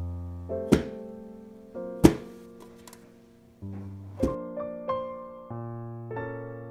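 Three sharp knocks over soft piano music, the middle one loudest: a baking sheet of freshly piped macaron shells rapped against the counter to release trapped air bubbles.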